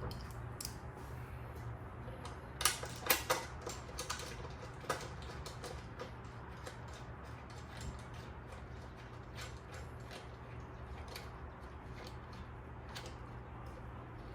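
Scattered clicks and light knocks of hands handling engine parts while fitting ignition coils, with a cluster of sharper clicks a few seconds in, over a steady low hum.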